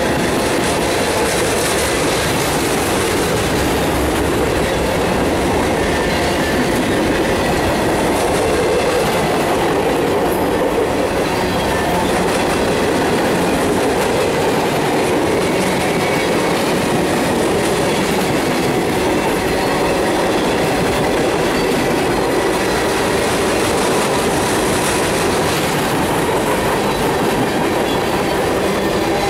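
Freight train's tank cars and covered hoppers rolling past close by: a steady loud rumble of steel wheels on the rails, clattering over the rail joints.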